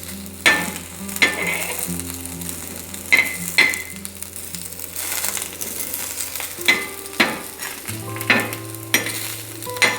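Millet-batter pancake sizzling in oil on a tawa griddle, with a spatula scraping and tapping against the griddle about nine times as the pancake is turned.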